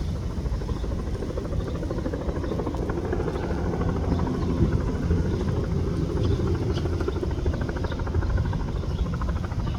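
Bell 206 helicopter's rotor chop and turbine engine running steadily close by as it comes in to land.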